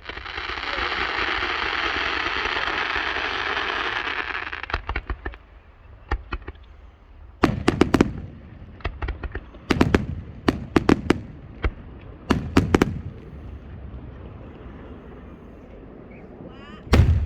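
Fireworks going off: a loud dense hiss for the first four seconds or so, then clusters of sharp bangs and crackles over several seconds, and one more loud bang near the end.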